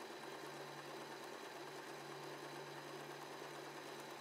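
W6 N 1800 mechanical sewing machine running steadily and quietly while sewing a triple zigzag stitch on thin fabric: an even hum with a faint high whine.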